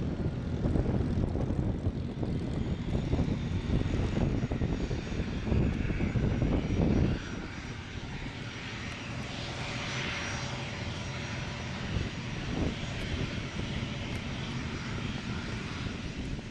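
P-51D Mustang's Packard Merlin V-12 engine running at taxi power, a loud, uneven pulsing. About seven seconds in it drops noticeably quieter as the aircraft taxis away.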